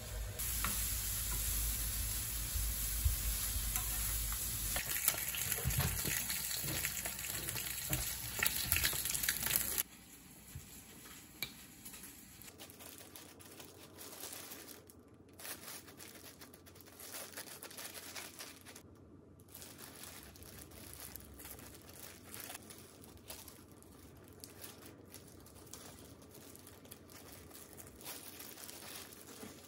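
Julienned carrots sizzling in a frying pan, cutting off abruptly about ten seconds in. After that, quieter light crinkling of plastic wrap and plastic food gloves.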